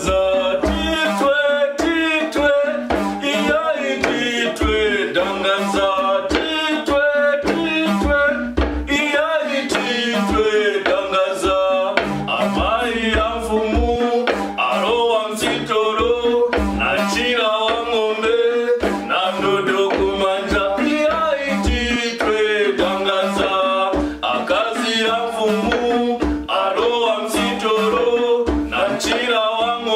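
Male voices singing a Nyanja/Chewa song over steady, regular low thuds of a hand drum and a wooden pestle pounding in a mortar.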